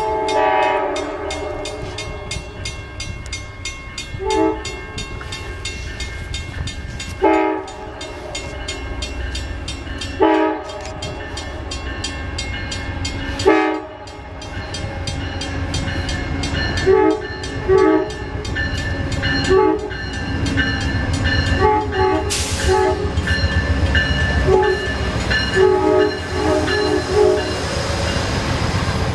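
Amtrak passenger train's air horn sounding as the train approaches: a long blast, then single short blasts about three seconds apart, then a rapid run of short toots. The rumble of the train grows louder as it comes in and passes close by near the end.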